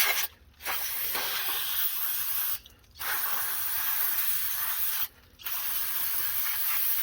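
Aerosol brake cleaner spraying in long hissing blasts, broken by three short pauses, as the axle and hub mount are cleaned during a wheel bearing replacement.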